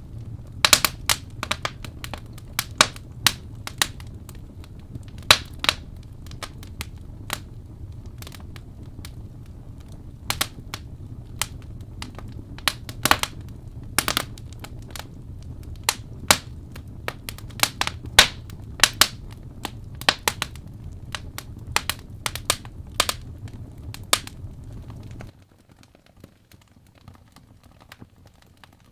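Fireplace crackling: a wood fire popping and snapping at irregular intervals over a steady low rumble. About 25 seconds in, the fire sound cuts off suddenly, leaving a much quieter background with a few faint ticks.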